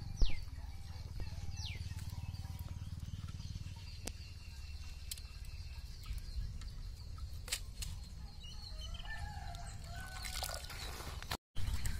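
Chickens clucking and calling now and then, with a few sharp knocks and splashes as a slaughtered chicken is dunked with a stick into a pot of hot water to scald it for plucking. The loudest knock comes just after the start.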